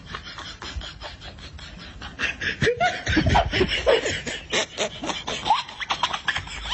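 A person laughing in a quick run of short bursts, starting about two seconds in.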